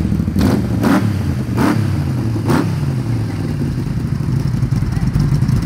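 Yamaha V-Max 1200 V4 motorcycle engine revved in four quick, sharp throttle blips during the first couple of seconds, then settling to a steady idle.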